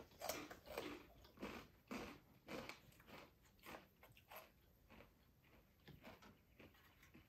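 Close-up crunchy chewing of Takis rolled corn tortilla chips, with short crunches about twice a second that fade after about four and a half seconds.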